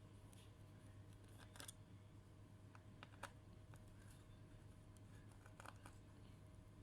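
Near silence: room tone with a steady low hum and a handful of faint, scattered clicks.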